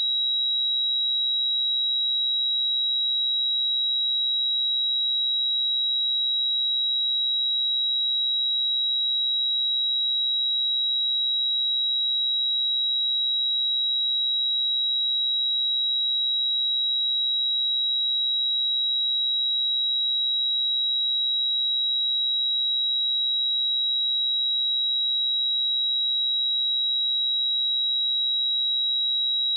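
A steady, unbroken pure sine tone at 3858 Hz, a high-pitched whistle-like test tone for checking speakers or headphones.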